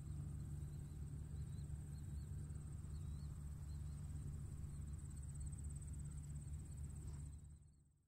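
Tractor engine running steadily, a deep even hum, with a thin high steady trill above it. It all fades out near the end.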